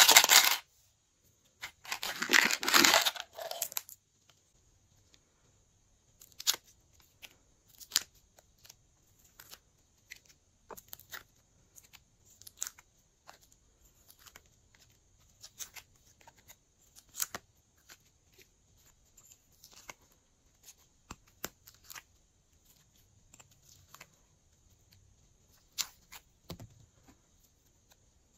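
Two loud noisy bursts in the first few seconds, the second lasting about two seconds. Then a long run of small scattered clicks and taps as pink cubes are pressed out of a clear plastic cube tray and dropped onto slime.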